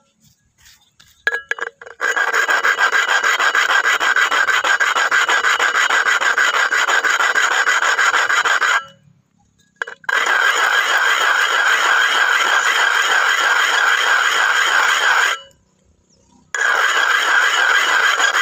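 Birdy coffee can being scraped top-down against asphalt, a steady loud rasp of metal grinding on the road surface to wear through the lid's rim so it can be opened. It starts about two seconds in and comes in three long spells with two brief pauses.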